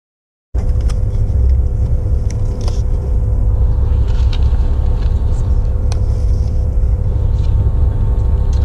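Steady low rumble and hum of a high-speed Eurostar train's passenger cabin at speed, starting about half a second in, with a few short crinkles and clicks from a cardboard-and-plastic sandwich packet being handled.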